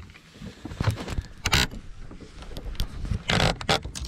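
A landing net and a thrashing fish being hauled from the water onto a boat deck: scattered knocks and two short scraping, splashing bursts, the longer one near the end.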